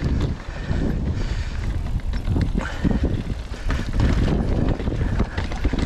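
Mountain bike riding over a rocky trail: a steady low rumble of tyres and bike, with scattered clicks and rattles.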